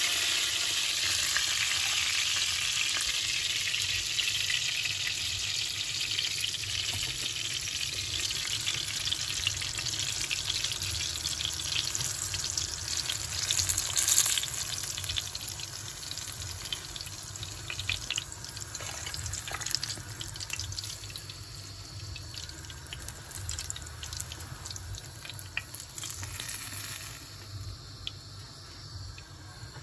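Thick-cut eggplant slices frying in hot oil: a steady sizzle with scattered crackles that gradually dies down.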